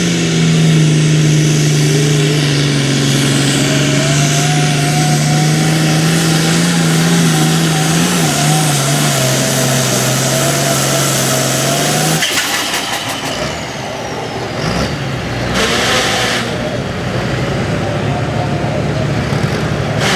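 Hot Farm class diesel pulling tractor at full throttle, dragging the sled, its engine note slowly sagging in pitch as it lugs under the load. About twelve seconds in the engine note cuts off abruptly as the pull ends. A short rush of noise follows a few seconds later.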